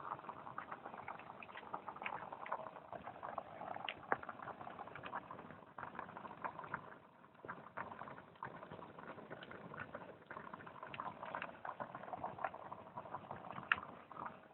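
Food cooking outdoors: steady bubbling and crackling, with many small sharp pops throughout.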